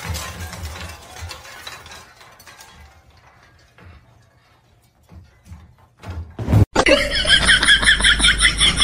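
Golden retriever howling with its head raised: a loud, wavering, high call that begins suddenly about seven seconds in. Before it, a brief fading noise and then near quiet.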